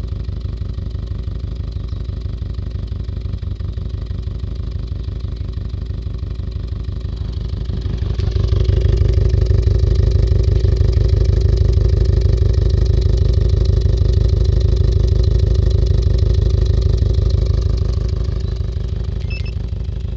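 Car engine running with a misfire: one fuel injector sprays poorly and delivers about 20% less fuel than the others. The running is a steady pulsing that gets louder about eight seconds in and eases back near the end.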